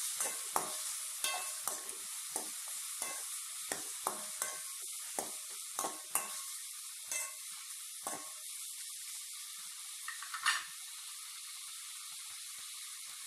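Shallots and tomatoes sizzling in sesame oil in a metal kadai, with a metal spoon scraping and knocking against the pan as they are stirred during the first eight seconds or so. One last louder scrape comes about ten seconds in, and after that there is only the steady sizzle.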